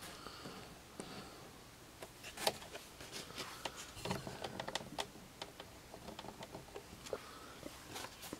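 Faint scattered clicks and light taps of signed photographs being handled, with the loudest click about two and a half seconds in.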